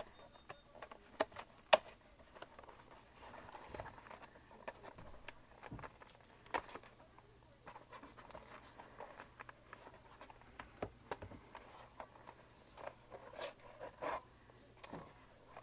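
Packaging being handled and pulled at by hand while someone tries to open a trading-card box: scattered sharp clicks, taps and brief rustles and scrapes. The loudest is a single sharp click just under two seconds in.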